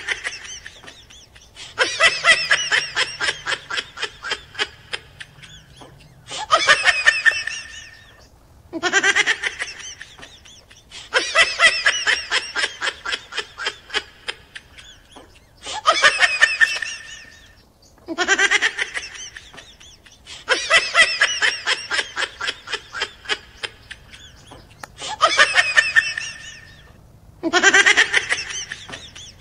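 Laughter sound effect played over and over: repeated bursts of fast, pulsing laughter, each a couple of seconds long with a short gap between.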